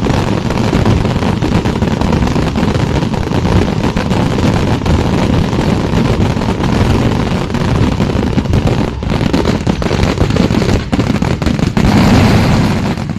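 Fireworks and firecrackers going off in a loud, dense, unbroken barrage of crackles and bangs, cutting off suddenly at the end.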